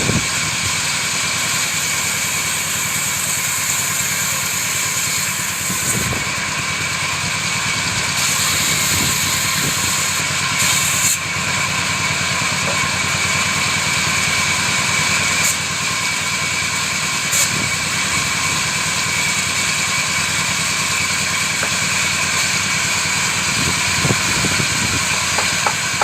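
Woodworking machine running steadily, a continuous mechanical whine.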